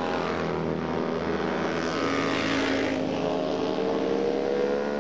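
Vintage DKW two-stroke racing motorcycles running hard as they ride past, with a steady multi-tone engine buzz. Near the end one engine's pitch rises steadily as it accelerates.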